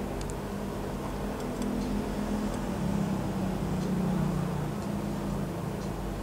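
A steady low hum over an even hiss, swelling a little in the middle. A few faint soft clicks come from a skewered chicken embryo egg being dipped in chili sauce.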